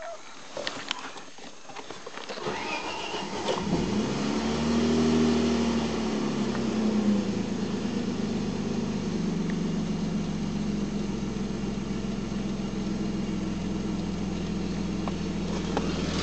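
A few clicks, then the Volvo 965's 2.5-litre straight-six is cranked by the starter about two and a half seconds in, catches, rises briefly in revs and settles into a steady idle. The idle is rough, on an engine that has sat unused for three years.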